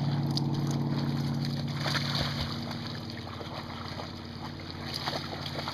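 A young flat-coated retriever splashing as she wades out through shallow lake water. Under it runs a steady low engine drone, loudest in the first half and fading somewhat about halfway through.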